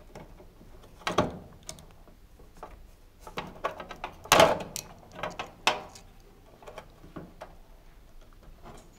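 Small irregular clicks and scrapes of electrical spade connectors being prised off a cooker hotplate selector switch with a small screwdriver and pushed onto the terminals of a new switch. The two loudest clicks come about a second in and about four and a half seconds in.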